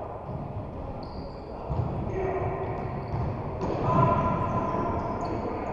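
Ball-game sounds on an indoor sports-hall floor: repeated low ball thuds and short high sneaker squeaks, with distant players' voices in the hall.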